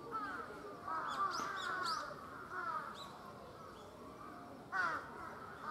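Crows cawing repeatedly: a cluster of overlapping harsh caws about a second in, and a single loud caw near the end. A few high, thin bird chirps come in with the first cluster.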